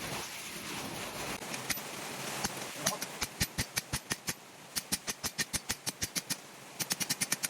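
Rapid hammer blows on a small hot steel bar, about five strikes a second in short runs with brief pauses, as the bar is forged round toward an octagon. A steady hiss fills the first couple of seconds before the blows start.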